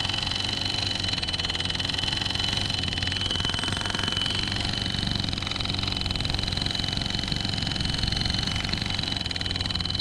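Rhino gas-powered post driver running steadily, its hammer pounding very fast and evenly on a 2-inch galvanized steel pipe to drive it in as a piling. A steady high ringing sits over the hammering.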